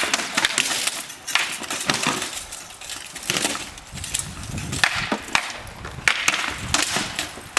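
Rattan swords striking shields and armour in close sparring: an irregular series of sharp wooden cracks and knocks, some coming in quick clusters of two or three blows.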